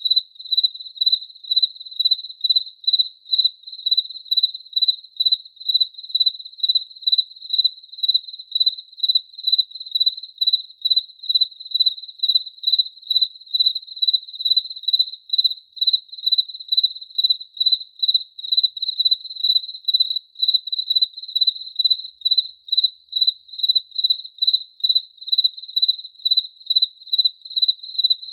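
A single cricket chirping in a steady, even rhythm, about two to three high-pitched chirps a second.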